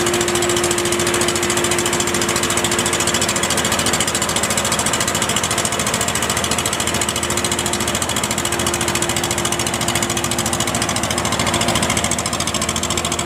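Rice combine harvester's engine running loud and steady under load, with a fast, even pulsing.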